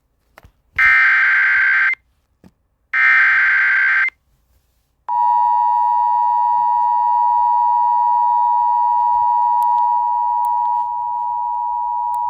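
Emergency Alert System tones: two short, raspy digital data bursts of the SAME header, about a second each and a second apart. About five seconds in, the steady two-tone EAS attention signal starts and holds, marking the start of an emergency warning broadcast.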